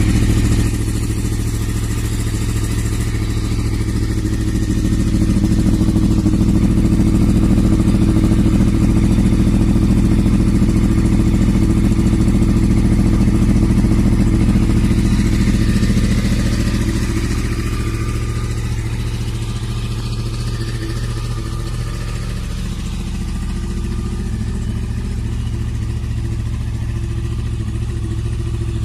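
Yamaha R1 inline-four sport bike engine idling steadily through an Akrapovič slip-on exhaust. The note swells a little louder from about five seconds in and eases back after about sixteen seconds.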